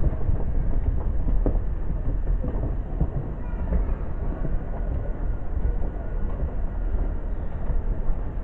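Diesel-hauled freight train approaching slowly: a steady low rumble of the locomotive and its wagons on the rails, with faint high squeals coming in from about three seconds in.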